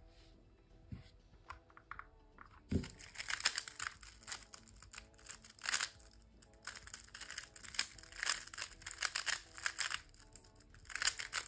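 Plastic 3x3 speed cube being turned fast during a speedsolve: a few scattered clicks, a sharp knock about three seconds in, then a dense, continuous run of clicking and rattling layer turns.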